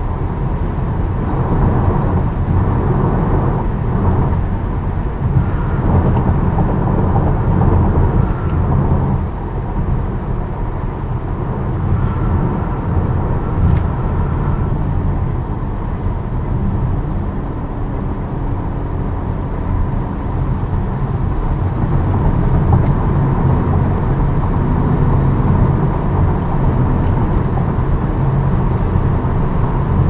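Steady road noise of a 2023 Tesla Model Y, an electric car, at highway speed: a continuous low tyre and wind rumble with no engine note.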